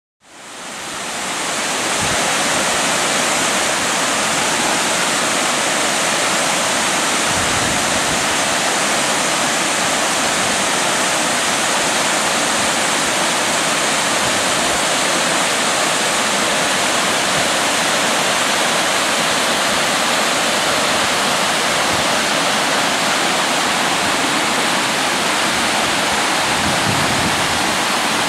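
Mountain waterfall cascading over steep rock, a steady rushing roar of falling water that fades in over the first second or two.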